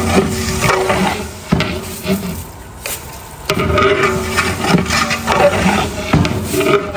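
A long-handled ladle stirring vermicelli and cashews in ghee in a large aluminium pot, scraping and knocking against the metal with sloshing liquid.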